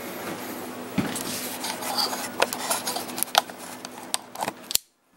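Light clicks and small knocks of handling over a faint steady hum; all sound drops out near the end.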